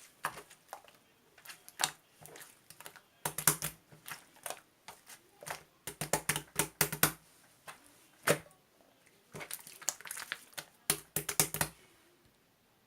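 An irregular run of sharp clicks and taps, some single and some in quick clusters, that stops about a second before the end.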